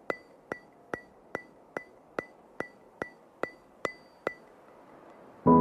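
Steady, sharp ticking, about two and a half ticks a second, each tick with a short bright ring; it stops a little over four seconds in. Soft ambient music with sustained chords comes in loudly at the very end.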